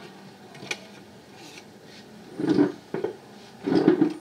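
Handling noise: hands and a smartphone rubbing and knocking on a wooden desktop, with a light click about a second in and two louder scrapes, about two and a half and four seconds in.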